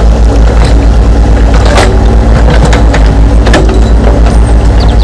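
Heavy excavator-style diesel engine running with a steady deep, pulsing rumble, with scattered clicks and scrapes over it.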